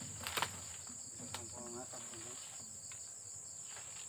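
Steady high-pitched drone of insects, a cricket-like chorus, with a couple of sharp snaps near the start.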